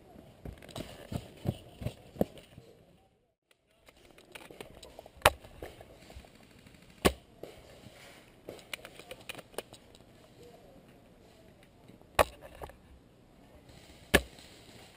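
Four sharp, single cracks of airsoft gunfire, spaced a couple of seconds or more apart, over a low outdoor background, with a few softer knocks in the first two seconds.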